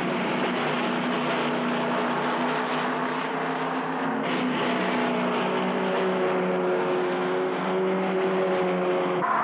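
Racing car engine running hard at high revs. Its pitch holds steady, shifts about four seconds in, then climbs slowly as the car accelerates.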